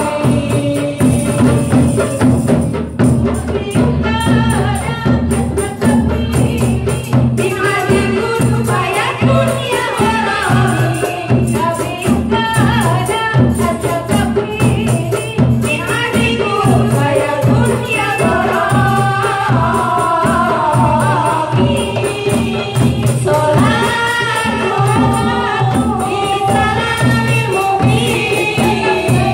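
Women's hadrah ensemble singing sholawat together over rebana frame drums, goblet drums and a large bass drum, the drums beating a steady, quick rhythm.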